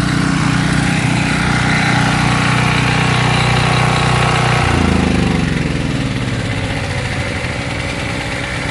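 Portable gasoline generators running with a steady engine drone. About five seconds in, the pitch slides and gives way to a different, slightly quieter engine note.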